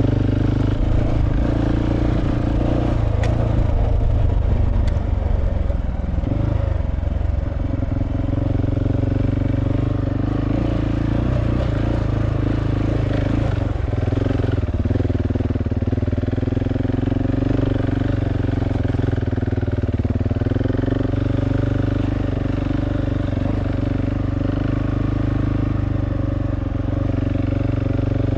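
Single-cylinder engine of a 701 LR dual-sport motorcycle running under way on a rough dirt trail. Its pitch rises and falls with the throttle, with a couple of sharp clicks about three and five seconds in.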